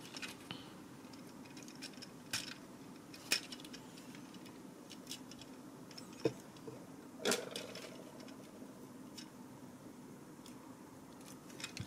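Scattered small clicks and taps of the plastic parts of a Mastermind Creations Ater Beta transforming robot figure being folded by hand, over a faint steady hum.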